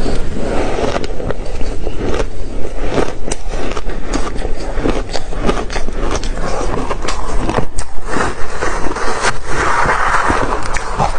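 Ice being bitten and chewed, a loud, dense run of crunching and cracking with many sharp snaps.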